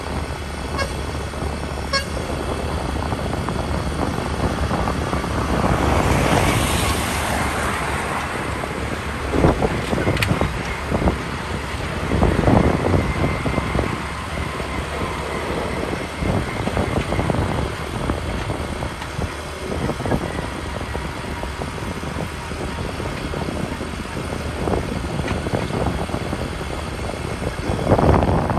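Steady road and wind noise of travel along a highway, a low rumble under a rushing hiss. A louder whoosh swells and fades about six to eight seconds in, and a few short louder bumps come later.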